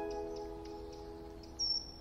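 Film score of plucked, harp-like notes ringing out and dying away, then near the end a short high chirp that drops slightly in pitch.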